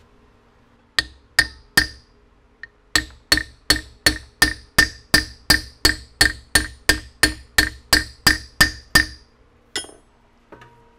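A hammer striking the back of a second, polished-face hammer held against a bent aluminium part clamped in a steel vise, driving the metal back flat. Three blows come first, then after a pause a steady run of more than a dozen blows at about three a second, each with a short bright metallic ring.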